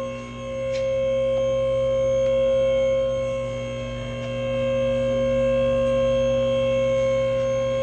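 A steady, humming drone of several held tones, unchanging and without rhythm.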